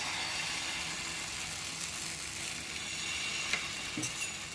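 Thin wheat-flour batter sizzling in hot oil on a flat iron pan (tawa) just after it is poured in, a steady hiss that eases slightly over the seconds. A couple of faint taps near the end.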